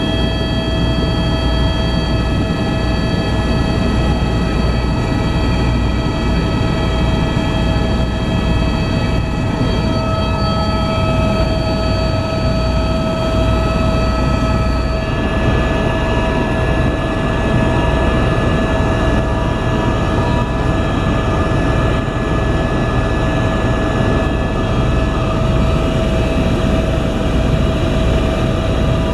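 Helicopter in flight heard from inside the cabin: a steady loud drone of rotor and engine with a constant high whine. Some of the whine tones change pitch about halfway through.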